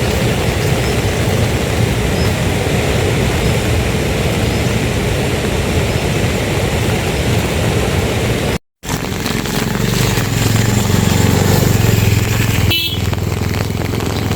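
Heavy rain falling steadily, a loud even hiss. After a cut about two-thirds of the way in, the rain goes on with a low steady hum beneath it and a brief sharp sound near the end.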